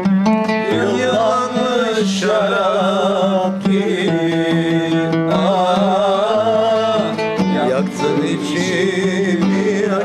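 A Turkish song played on a plucked short-necked lute, with a voice singing wavering held notes over the strings.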